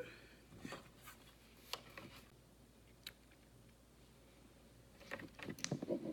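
Faint clicks and scrapes of a lip gloss tube being opened and its applicator wand drawn out, with a quick run of small wet clicks about a second before the end.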